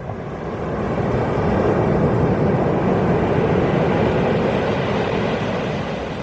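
Ocean wave breaking and surging up a pebble beach: the rush of water builds over the first second or two, holds, then slowly fades away.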